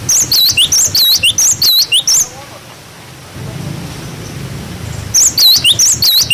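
Cinereous tit (glatik batu) singing its 'wucit wucit' song: two bursts of rapid, high, sweeping notes, each about two seconds long, one at the start and one about five seconds in. A low hum runs between them.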